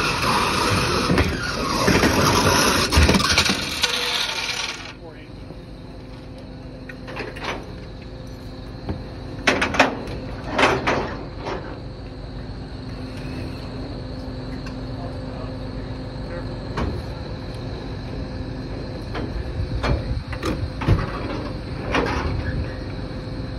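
A flatbed tow truck's winch being worked to load a wrecked car: loud rushing noise for about the first five seconds, which stops abruptly, then a steady machine hum with a few sharp metallic clanks.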